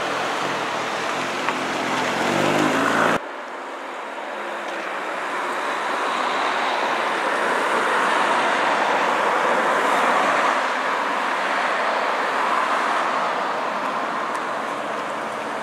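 Brabus 700 Mercedes G-Class's twin-turbo V8 rising in pitch as it pulls away, cut off abruptly about three seconds in. Then steady road-traffic noise that swells and fades.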